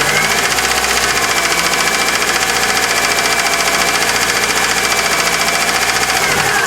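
Chery Amulet petrol engine running with a fast, regular ticking knock from the cylinder head, which the mechanic takes for a faulty hydraulic lifter. A whine over it climbs in pitch at the start, holds steady, and falls back near the end.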